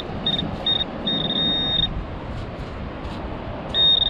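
Metal detector beeping at a buried target in the sand: a few quick high beeps, then a long steady tone, a pause, and another long tone near the end, over a steady background rush. The tones signal a metal object close by, here a small pendant.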